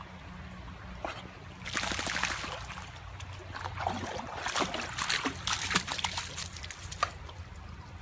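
A dog splashing and sloshing through a shallow stream: irregular splashes over running water, starting about two seconds in and ending with one sharp splash near the end.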